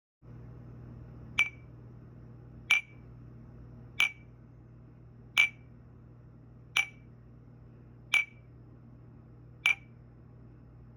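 Seven light ringing clinks at an even pace, about one every second and a half, over a steady low hum.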